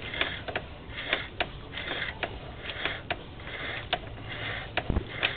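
Sewer inspection camera's push cable being fed down the drain line: irregular clicks, about two or three a second, with a scraping hiss between them as the camera head travels along the pipe.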